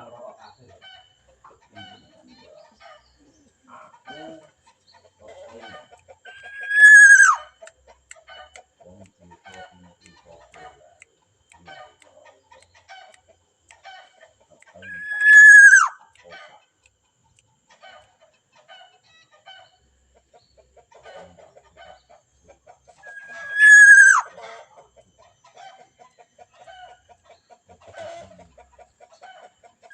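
Loud, harsh bird call about a second long, holding a high pitch and then dropping away at the end, repeated at even spacing every eight or nine seconds, with faint chirps in between.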